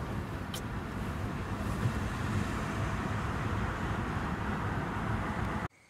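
Steady road and engine noise of a moving car, heard inside the cabin, cutting off suddenly near the end.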